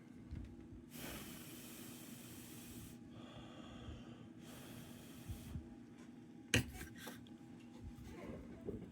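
Two bursts of hissing air, the first about two seconds long and the second about one second, then a sharp tap about six and a half seconds in.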